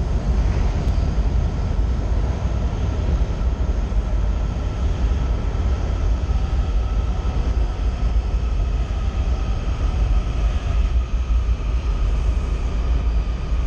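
Washington Metro 7000-series subway train pulling into the station alongside the platform: a loud, steady low rumble of the cars rolling past, with a faint steady whine above it from about the middle on.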